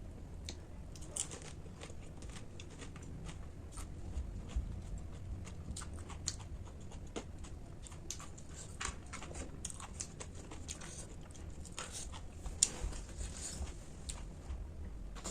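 A person chewing and crunching snack food close to the microphone, with irregular small crunches and mouth clicks.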